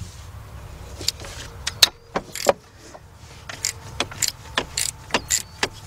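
Irregular sharp metallic clicks and clinks from a 3/8-drive socket tool with a long extension and a 10 mm deep socket, fitted onto and loosening a sensor's hold-down bolt. The clicks fall singly, not in a rapid run, over a low steady hum.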